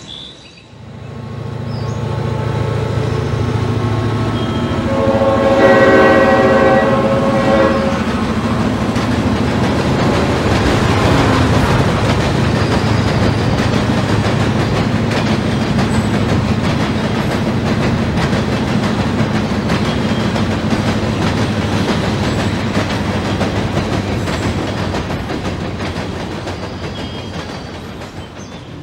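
HO-scale model freight train passing, with a steady low diesel-engine hum. A multi-tone horn blows for about three seconds, starting roughly five seconds in, and the cars clatter over the track, fading toward the end.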